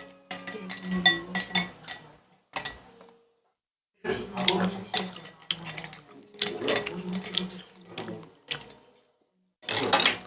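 Dishes and cutlery clinking and knocking in a series of short bursts, with brief silent gaps between them.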